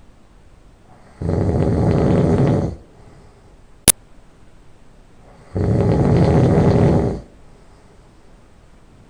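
A person snoring loudly through the nose: two long snores, each about a second and a half, some four seconds apart, with quiet breathing between. A single sharp click sounds just before the second snore.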